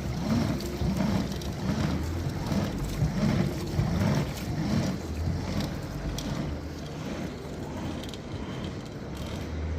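Bicycle-powered washing machine, an old washing machine driven by pedalling an old bicycle through a 1:13 gearbox, running with a low rhythmic pulse about twice a second that eases off after about six seconds.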